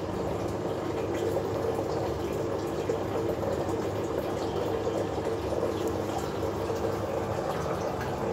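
Water circulating through an NFT hydroponic system: a steady running and trickling of water with a faint steady pump hum underneath.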